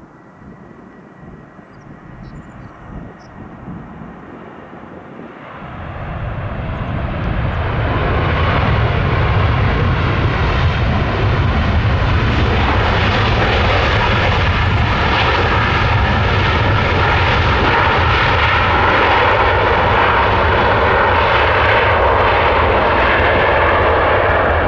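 Airliner engines, rising sharply about five seconds in to a loud, steady noise with several whining tones layered over a deep rumble.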